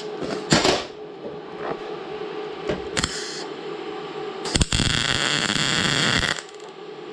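MIG welder arc crackling for about two seconds, starting a little past halfway and stopping abruptly, as weld is laid onto a broken bolt stub; a few short clicks come before it.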